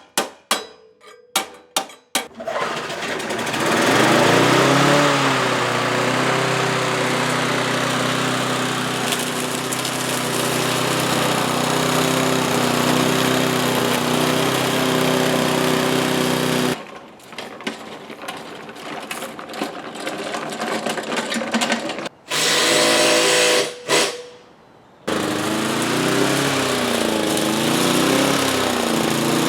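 A few quick hammer taps, then a Briggs & Stratton Sprint lawn mower engine running steadily. It drops out briefly twice, and near the end its pitch rises and falls repeatedly.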